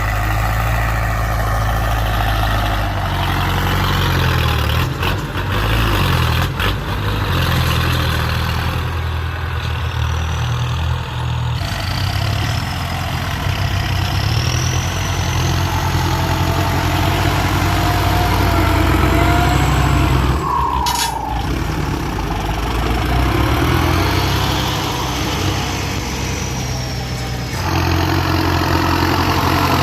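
Ford 6610 tractor's four-cylinder diesel engine running steadily while working a field. Its engine note shifts in pitch several times as the throttle and load change.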